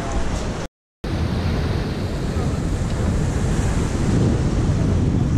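Wind buffeting the microphone over ocean surf, a steady rushing noise heaviest in the low end, cut off briefly by a moment of silence about a second in.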